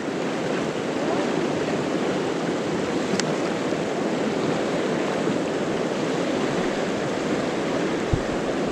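Fast mountain river rushing over a shallow, rocky riffle: a steady wash of water. A single faint click comes about three seconds in, and a low thump near the end.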